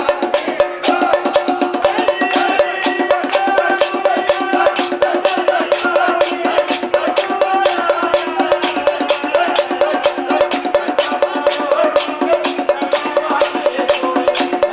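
Kanyar Kali folk music: men's voices singing over a barrel drum, with a steady, even clicking beat of about three to four strikes a second.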